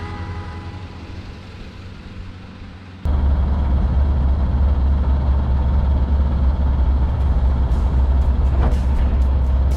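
Background music fades over the first three seconds, then a loud, steady low rumble of a moving vehicle starts abruptly.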